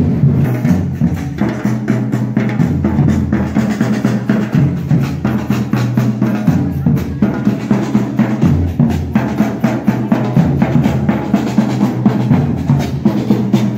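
A marching troupe beating large bass drums, a loud, fast and steady rhythm of many beats a second.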